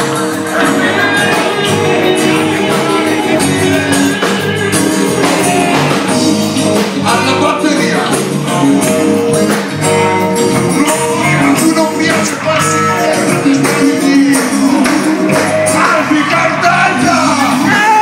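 Live rock band playing: guitars and drums with a lead singer.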